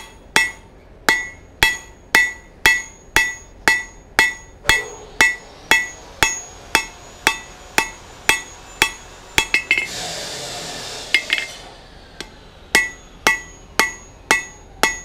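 Hand hammer striking a red-hot steel bar on an anvil, drawing out a chisel taper: steady blows about two a second, each with a bright ring. About nine seconds in the blows stop for a couple of seconds with a short scraping hiss, then resume.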